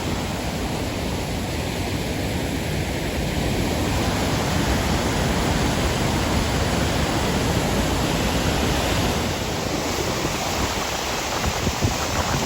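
Steady rush of a river waterfall, the rocky lower falls of a wide river, a constant dense roar of falling and churning water.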